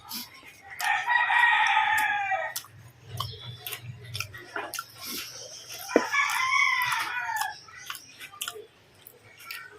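A rooster crowing twice, each crow about two seconds long and dropping in pitch at its end.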